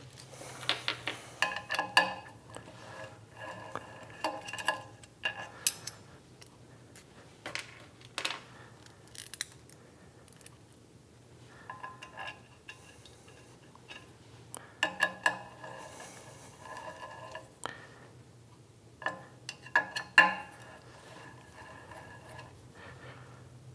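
Small steel washers and socket-head cap screws clinking as they are handled and fitted to a servo motor's mounting plate, with a hex key turning the screws. Short metallic clinks with a brief ring come in scattered clusters, the loudest about twenty seconds in.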